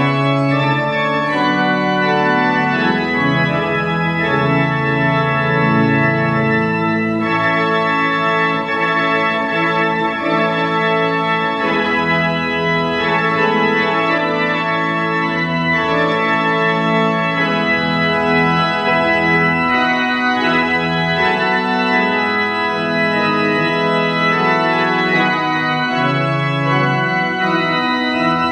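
Church organ playing a slow piece of held chords over a moving bass line: the postlude that closes the service.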